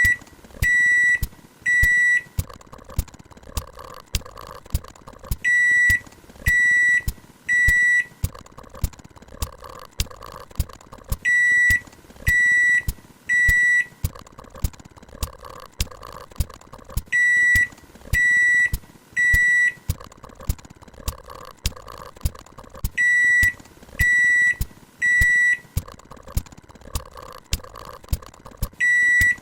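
Microwave oven beeping: three short high beeps in quick succession, the group repeating about every six seconds, over the steady hum of the oven running.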